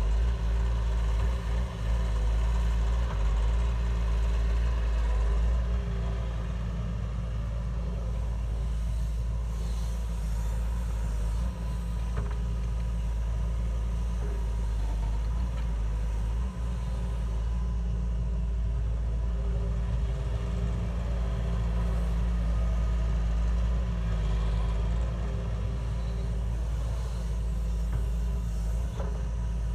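Heavy machine's engine running steadily with a deep, even rumble and a few faint knocks.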